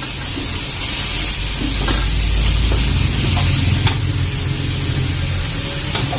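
Ground beef sizzling in hot olive oil with onion and garlic in a wok, a steady frying hiss, while a wooden spatula stirs and breaks up the meat with light scrapes against the pan.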